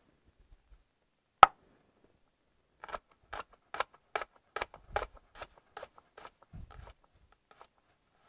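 Santoku knife slicing garlic cloves on a wooden cutting board: a single sharp knock about a second and a half in, then a quick run of blade strikes on the board, about three a second, for around four seconds.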